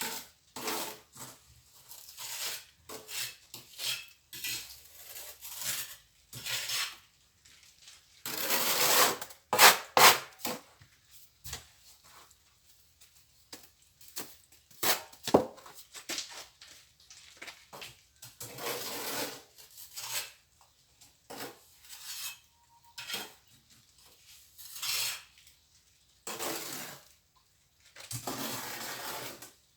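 Steel plastering trowel scraping and spreading mortar in irregular strokes, with metallic clinks. The strokes last from a fraction of a second to about two seconds, and the loudest run comes about a third of the way in.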